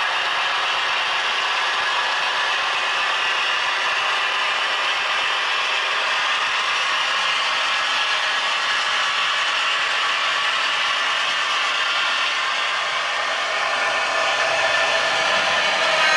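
Model train running along the track: a steady, dense clatter of wheels and gearing, growing a little louder near the end.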